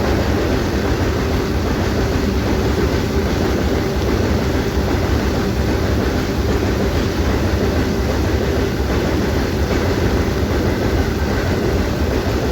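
Train running over a steel railway bridge, its wheels clattering in a steady, loud rumble, with heavy rain falling.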